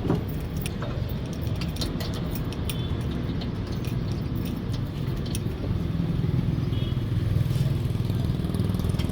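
Street noise with a steady low rumble of traffic, and a run of light metallic clinks and ticks over it in the first half.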